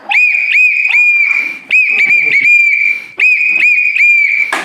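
A Thomas the Tank Engine toy whistle blown over and over on one shrill note. It comes in runs of short toots, each run ending in a longer held toot, and every toot swoops up into the note as it starts. A sharp click comes near the end.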